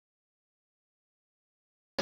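Digital silence; outdoor street sound cuts in abruptly at the very end.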